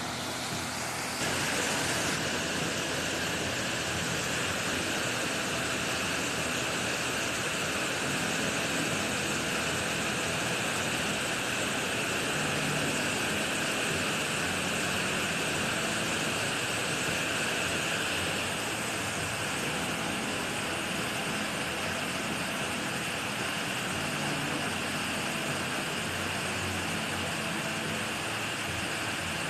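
Waterfall rushing, a steady even noise of falling water, with slight shifts in tone about two seconds in and around eighteen seconds in.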